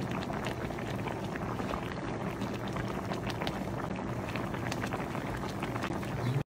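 Broth boiling in a shabu-shabu hot pot: a steady bubbling hiss full of small pops.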